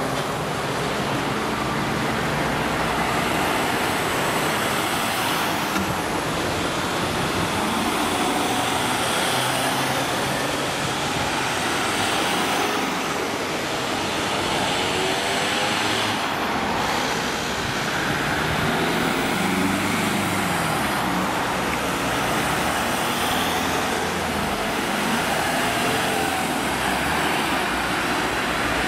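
A column of emergency vehicles, fire engines and ambulances, driving past one after another: engines and tyres on the road make a steady traffic noise.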